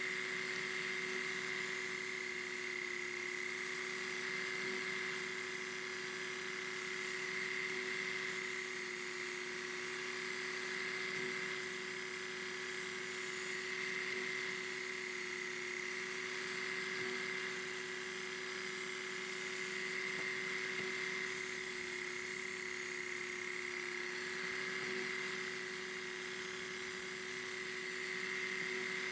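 Work Sharp Ken Onion Elite belt sharpener running steadily with an even motor whine, while a kitchen knife is drawn through its guide against the coarse abrasive belt in sharpening passes.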